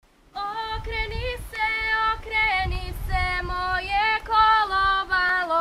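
A group of women singing a Croatian folk song unaccompanied, their voices coming in together just after the start and holding long, sliding notes.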